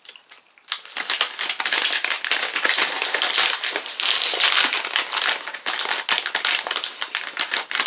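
Plastic snack bag crinkling and crackling as it is handled and pulled open, a dense run of crackles starting about a second in.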